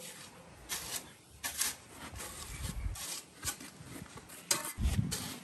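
Shovel blade scraping and scooping into a loose pile of 6mm-to-dust crushed stone, a run of short gritty strokes. A couple of dull low thumps come in the middle and near the end.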